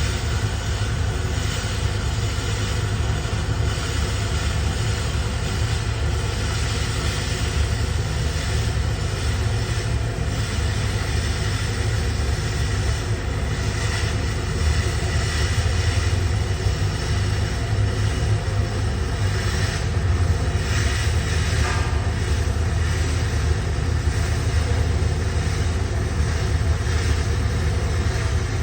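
Welding arc on 316 stainless steel, burning steadily without a break: an even hiss over a low hum.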